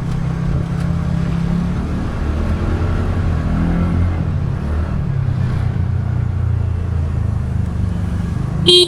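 Scooter engine running steadily at low speed in traffic, with a short horn toot near the end.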